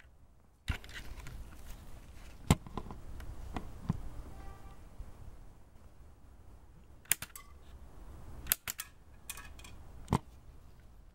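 Sharp clicks and snaps from a LEGO rubber-band double-barrel shotgun being fired and handled, the loudest about two and a half seconds in and more scattered through the rest, over a steady background noise that begins just under a second in.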